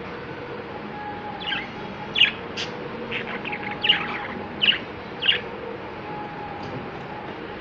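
Budgerigars chirping: a string of short, sharp chirps through the middle few seconds, over a steady background hum.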